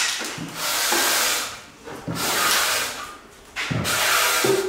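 Steel drywall trowel scraping joint compound along a drywall butt joint, in three long strokes.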